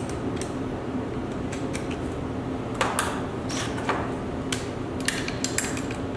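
Metal clicks and clinks of a 9/16 wrench being picked up and worked on the bolts that fasten the garage door torsion springs to the center bearing bracket. The clicks are irregular and come in the second half, closest together near the end, over a steady low hum.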